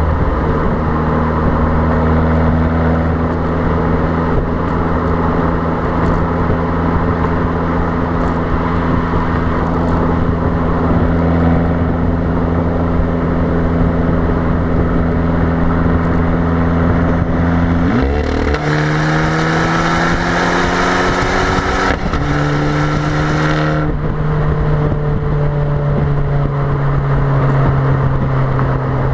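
Abarth 595's 1.4-litre turbocharged four-cylinder exhaust droning steadily at motorway cruise, with wind noise on the microphone. About eighteen seconds in, the revs climb under hard acceleration for some six seconds with a raspier, hissier note, then settle back to a steady cruise.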